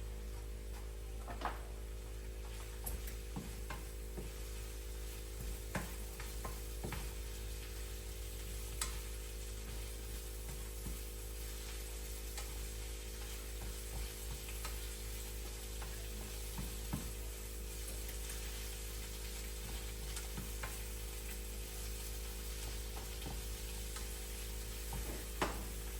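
Mushrooms and onions sizzling as they sauté in a pan on the stove, with scattered clicks and scrapes of a utensil stirring them. A steady low hum runs underneath.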